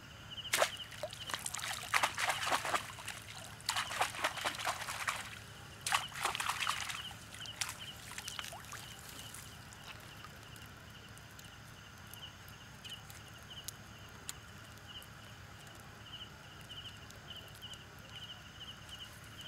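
Water sloshing and splashing in irregular bursts for the first seven seconds or so, as of feet wading through shallow water, over a steady pulsing chirp of night insects that carries on after the splashing stops.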